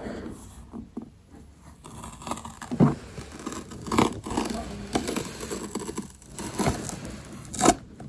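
Tear-off seal strip being pulled from the top of a new iPad box: irregular scraping, crinkling and tearing, with a few sharper rips, the loudest near the end.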